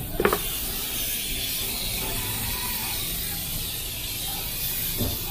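Aerosol can of tire foam spraying steadily onto an engine cover, a continuous hiss, with a short click about a quarter second in and another near the end.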